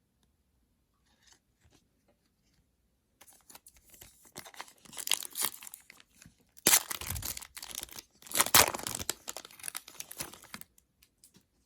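Trading cards being handled: rustling, crinkling and scraping of card stock and pack wrapper. It starts after a few quiet seconds and has two louder bursts in the middle.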